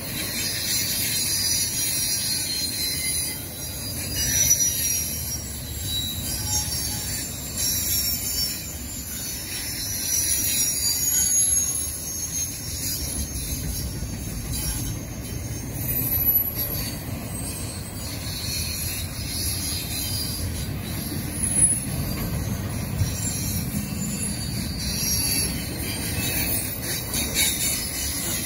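Double-stack container well cars of a long freight train rolling past: a steady rumble of wheels on rail with high-pitched, wavering wheel squeal over it, and a few sharp knocks, about four seconds in and again near the twenty-second mark.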